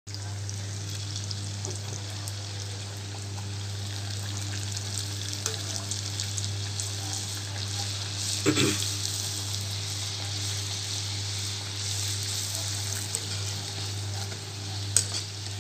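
Wheat-flour puris deep-frying in hot oil in a steel kadhai: a steady sizzle over a low hum. About eight and a half seconds in, the wire skimmer knocks against the pan, and there is a sharp click near the end.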